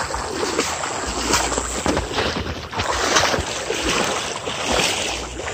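Water sloshing and splashing in uneven swishes as someone wades through floodwater.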